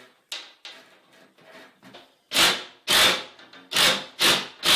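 Cordless driver fitted with a socket, run in five short pulses about two a second, driving a lag screw through a sliding barn door's steel rail into the wall. Light knocks and scraping of the rail against the wall come before it.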